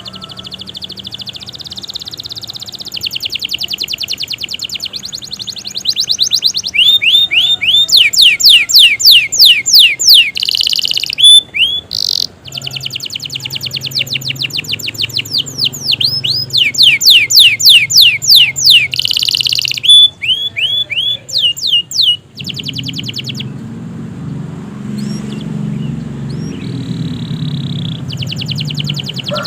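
Domestic canary singing its long song: fast trills of repeated sweeping notes, one trill giving way to the next with short breaks. In the last several seconds it drops to a few scattered notes over a low hum.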